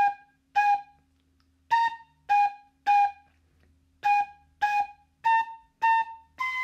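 Recorder playing a simple melody in short, separately tongued notes: two Gs, a pause, A, G, G, a pause, then G, G, A, A, and a long held B starting near the end.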